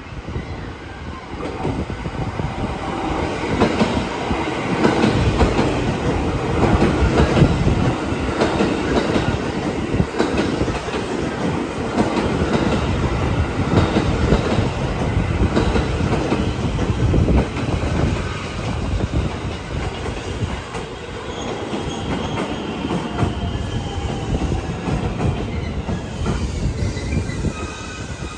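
A JR West 223 series electric train pulls into a platform, its wheels clattering over rail joints, loudest in the middle as the cars pass close. Near the end, as the train slows toward a stop, a whine falls in pitch.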